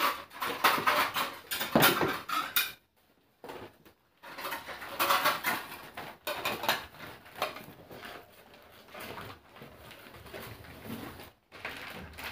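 Newspaper and plastic wrapping rustling and crinkling in irregular bursts as packed items are handled and unwrapped, with short pauses and light knocks of a plastic container.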